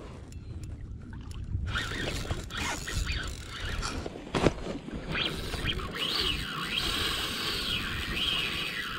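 Spinning reel whirring while a hooked bonito is fought, its whine rising and falling in pitch over and over in the second half. A sharp knock a little over four seconds in.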